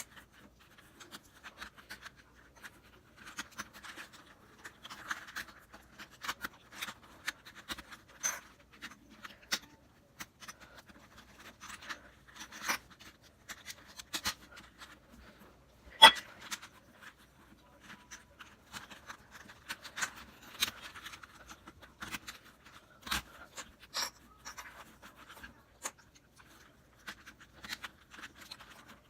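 Plastic Rubik's Cube pieces clicking and scraping as the cube is reassembled by hand, with irregular small clicks throughout and one sharp, louder click about sixteen seconds in.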